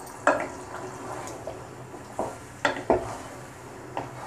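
Wooden spatula stirring thick pea-and-paneer curry gravy in a non-stick saucepan, knocking sharply against the pan about five times.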